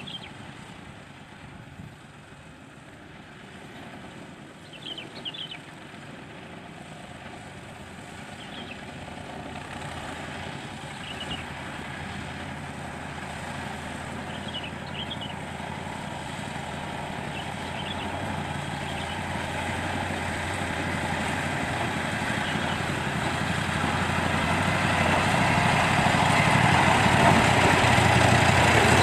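Small Kyosan Kogyo diesel cane-railway locomotive running as it approaches hauling loaded cane lori. Its engine grows steadily louder as it nears.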